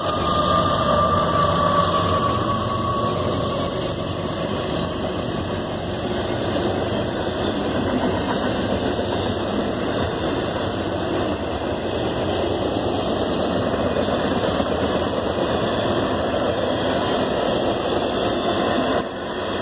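Norfolk Southern freight train passing: diesel locomotives running, then intermodal cars rolling over the rails with a steady rumble. A faint high tone fades out over the first few seconds.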